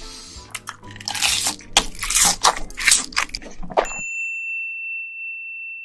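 Close-miked biting and chewing of spicy braised seafood, with a rapid run of sharp crunchy, wet bites. About four seconds in, this cuts off suddenly and a single steady high tone sounds for about two seconds.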